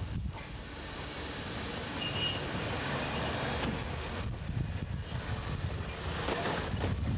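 Choshi Electric Railway electric railcar No. 702 passing close by, its wheels rolling over the rails with a steady low rumble.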